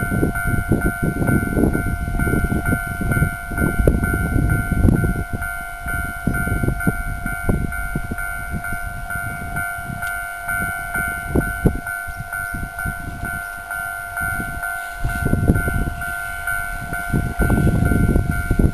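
Railway level-crossing warning bell ringing: a steady, evenly repeating electronic ding, over a gusty low rumble. The rumble swells near the end as the 583 series electric train draws close.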